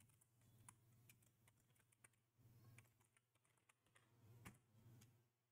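Very faint, scattered keystrokes on a computer keyboard, a handful of separate taps, over a low steady hum.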